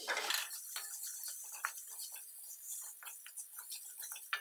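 Onion, lentils and spice powder frying in a little oil in a metal pan while a wooden spatula stirs them: a faint, irregular crackling with scattered ticks, the sharpest tick near the end.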